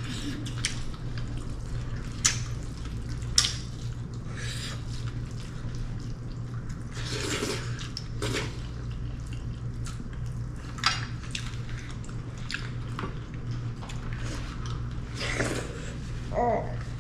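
Eating at a table: scattered light clicks and scrapes of food and utensils on plates, with a few short rustling or slurping smears, over a steady low hum.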